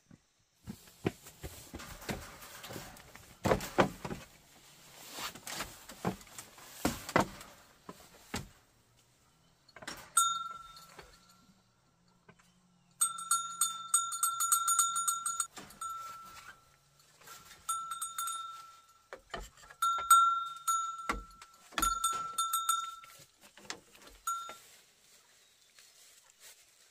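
A whistle blown in a series of blasts from about ten seconds in: one long blast of two to three seconds, then about half a dozen shorter ones, each a steady high tone with a fast flutter. Before that, a run of knocks and rustling handling noises.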